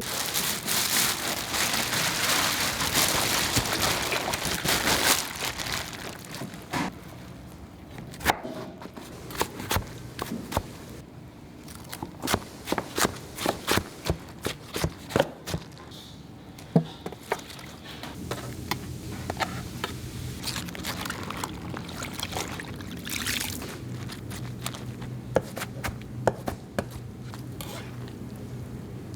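Commercial kitchen work sounds: a few seconds of loud hissing, then a quick run of clicks and knocks of utensils and containers, over a low steady machine hum that grows plainer in the second half.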